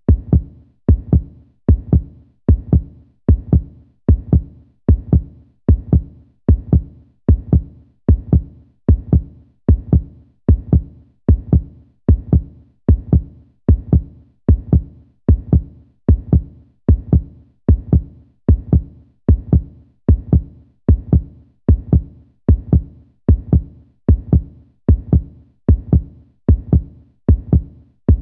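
Heartbeat sound effect: a steady 'lub-dub' of paired low thumps repeating a little more than once a second, evenly spaced.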